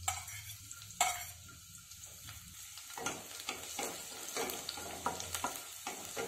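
Chopped garlic sizzling in hot oil in a non-stick kadhai for a tadka, while a wooden spatula stirs and scrapes across the pan. A sharp knock sounds about a second in.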